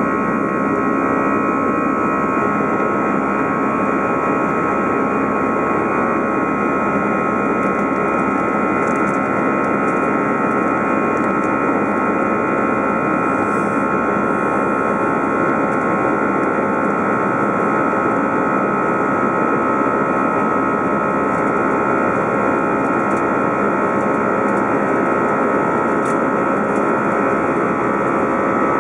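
An Airbus A319's jet engines heard from inside the cabin during the climb after takeoff: a loud, steady engine noise with a steady whine on top.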